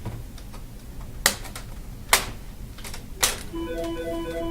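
Plastic snap clips of a laptop's LCD bezel popping loose as the frame is pulled off by hand: a series of sharp snaps, three of them loud, about a second apart, with fainter clicks between. Near the end a steady musical tone with pulsing notes comes in.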